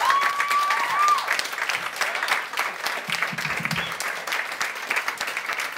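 Live audience applauding steadily, many hands clapping at once, with a brief high cheer from someone in the crowd in the first second.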